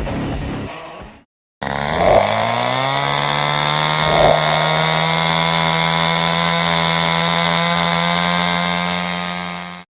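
Music fades out, then after a brief silence a chainsaw starts up and revs to full throttle. Its engine note rises and then holds steady and high, with two short surges near the start, until it cuts off suddenly near the end.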